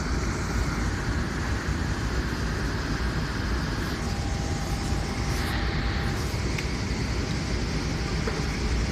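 Steady low rumble and hiss of an airliner cabin in flight.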